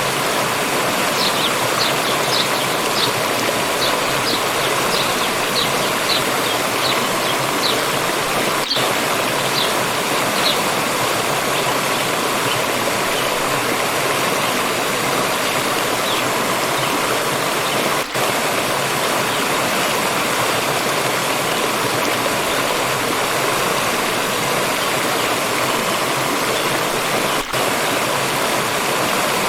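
Steady rushing of a forest stream over rocks. Over it a small bird gives a run of short high chirps, about two a second, for roughly the first ten seconds. The water sound dips for an instant twice later on.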